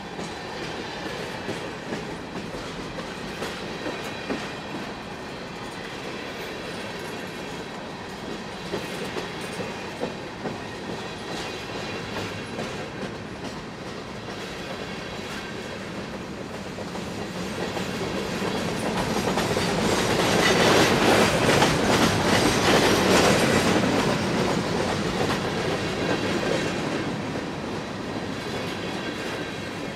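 Freight train of covered hopper cars rolling past, its wheels clicking over rail joints over a steady rumble. It grows louder for several seconds past the middle, then eases off.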